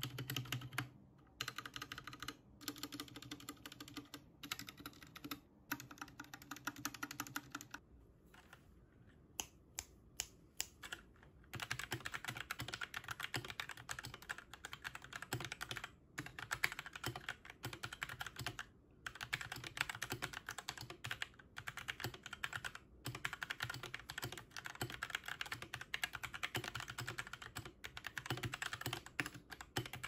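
Unmodded Royal Kludge RK837 mechanical keyboard with Huano red switches. For the first eight seconds the stabilized keys, the spacebar above all, are pressed over and over. After a short lull with a few scattered clicks, steady fast typing starts about twelve seconds in, broken by a few brief pauses.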